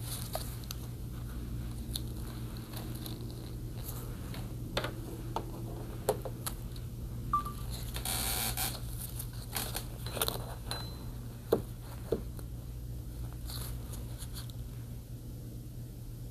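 Small handling noises from working with tools and strips of tape: scattered light clicks and scrapes, with a short rustle about eight seconds in, over a steady low hum.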